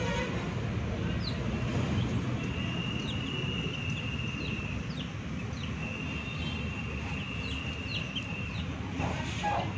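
Young chicks peeping: scattered short cheeps, each falling in pitch. Behind them a steady high tone sounds twice, a couple of seconds each time.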